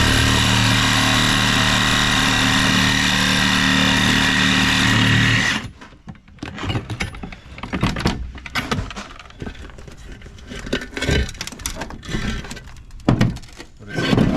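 Power saw cutting through a tire bead with its steel wire, running steadily and then stopping abruptly about five and a half seconds in. Irregular knocks and clanks follow.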